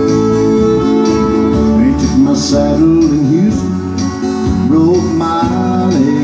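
Country band playing an instrumental break: acoustic guitar strumming chords under a lead instrument whose notes slide and bend.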